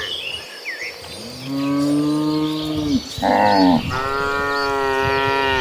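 Cattle mooing: a long, steady moo starting about one and a half seconds in, a short higher-pitched call, then another long moo.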